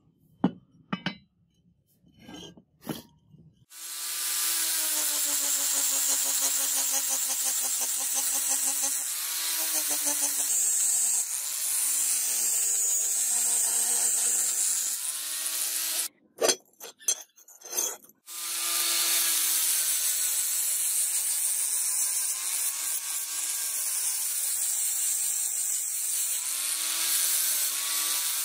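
Angle grinder grinding the edge bevel of a rusted steel sword blade: a steady motor whine with a grinding hiss, the pitch dipping as the disc bears down. A few knocks come before the grinder starts, and it stops for about two seconds around the middle with a few more knocks before grinding again.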